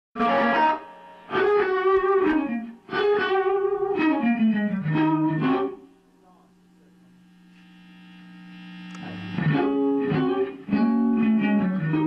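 Electric guitar played solo: bluesy phrases with string bends and falling runs. About six seconds in, one note is held for about three seconds, fading and then swelling back up, before the licks resume.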